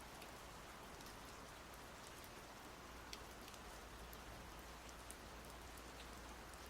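Steady soft rain, an even hiss with scattered single drops ticking through it.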